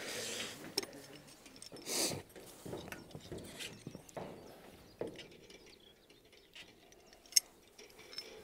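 Scattered metallic clicks and scrapes from hand work on solar-panel mounting rails and clamps, with a few brief rustles and one sharp click near the end.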